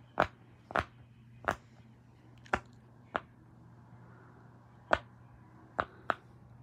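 Bubbles of a silicone pop-it fidget toy being pushed in by fingers one at a time: about eight sharp pops at uneven intervals.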